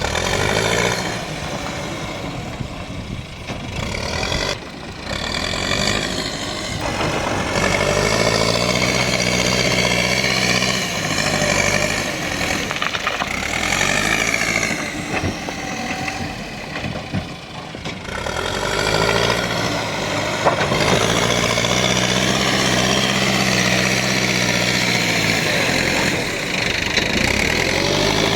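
Diesel engine of a JCB earthmoving machine working under load, revving up and dropping back several times as it digs and moves earth, with a long stretch at high revs in the second half.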